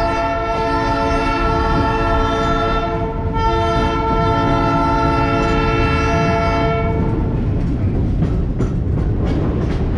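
Train horn sounding in two long blasts, a stack of steady tones with a short break about three seconds in, cutting off about seven seconds in. Under it, the steady low rumble and clatter of the rail car rolling on the track.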